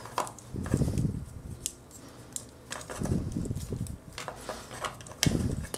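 A small plastic transforming robot figure being handled: sharp clicks of its parts and joints and fingers rubbing on the plastic, in a few short spurts, as a part is fitted and the figure is posed.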